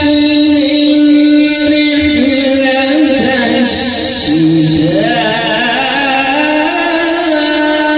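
Quranic recitation (tilawat) by a qari: one man's voice chanting in long, held notes that wind slowly up and down in pitch.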